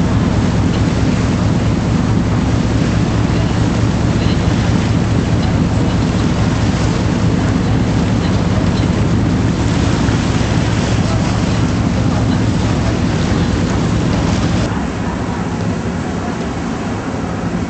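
Boat engine running with a steady low drone under water and wind noise, dropping noticeably quieter about fifteen seconds in.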